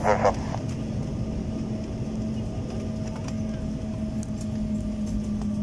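Airliner cabin noise as the jet rolls along the runway after touchdown: a steady rumble with a constant hum and a few faint rattling clicks.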